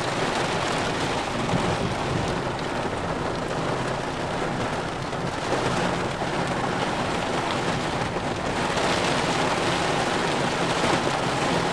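Heavy thunderstorm downpour, a steady hiss of rain beating down.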